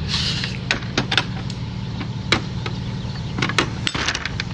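Truck engine idling steadily, with a scatter of short sharp clicks and knocks over it.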